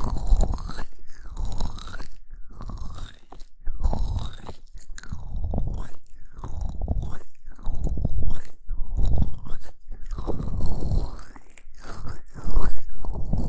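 Hands rubbing and massaging the silicone ears of a binaural dummy-ear microphone, heard right at the mic. The rubbing comes in strokes about once a second, unevenly spaced.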